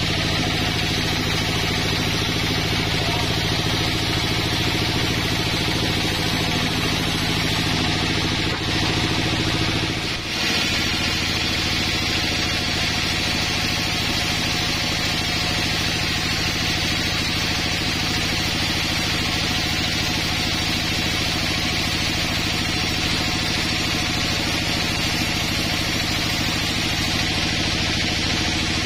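Band sawmill running steadily, its vertical band blade cutting a log into pine planks: a constant machine drone with a hiss of sawing over it. The sound briefly dips about ten seconds in.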